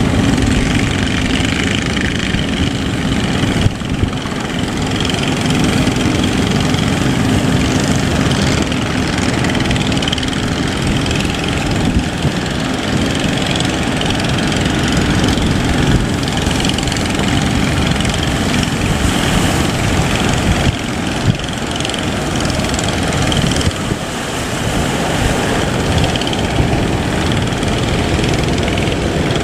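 Boat engine running steadily under way, mixed with dense rushing noise, with a few brief knocks and dips in level.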